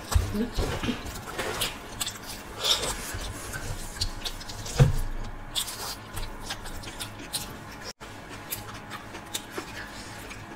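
Fingers scraping and picking food scraps off aluminium foil, with close-miked chewing and mouth sounds. Scattered small clicks and crinkles, with one sharper knock about five seconds in.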